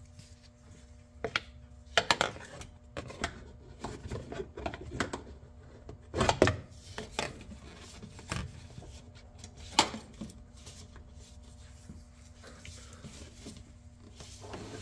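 Irregular knocks, clicks and scrapes of a funnel being pushed and wiggled into a tight gap in a UTV engine bay, rubbing and tapping against the metal frame and linkage parts, with a few sharper knocks.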